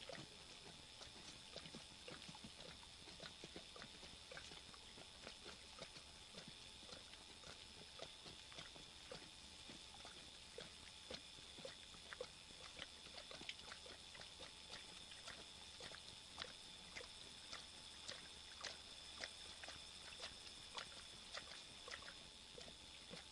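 Faint night ambience: insects keeping up a steady high trill, with small irregular clicks and scratches, a few a second.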